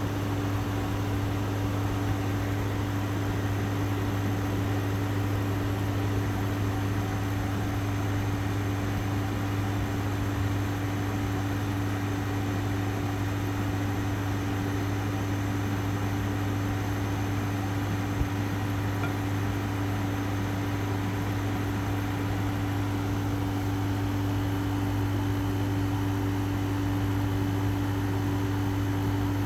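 Steady machine hum with an even hiss, holding two constant low tones without change.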